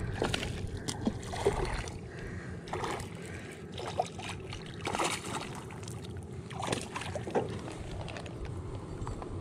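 A hooked bass splashing and thrashing at the water's surface as it is reeled in beside a small plastic fishing boat: irregular splashes and knocks over a steady low rumble.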